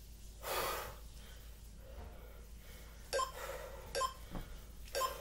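A woman breathing hard while working through dumbbell curls to presses: a long exhale about half a second in, then three short, sharp breaths about a second apart near the end.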